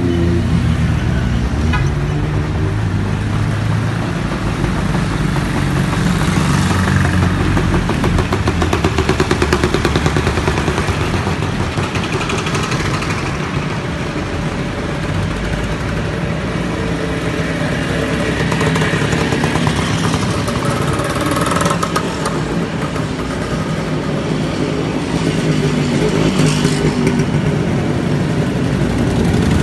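Engines of classic motorcycles and scooters riding slowly past one after another, a steady mix of engine notes that swells as each bike comes close.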